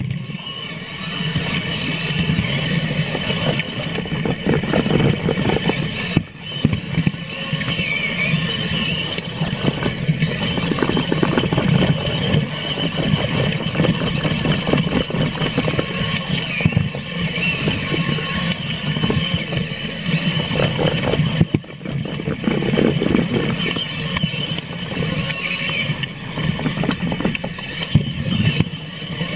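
Continuous motor-vehicle noise: an engine running steadily with a rough low rumble, briefly dipping twice.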